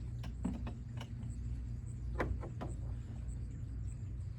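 Several short clicks and knocks of the carnival ride's studs being handled during teardown, three in the first second and three more a little after two seconds, over a steady low hum.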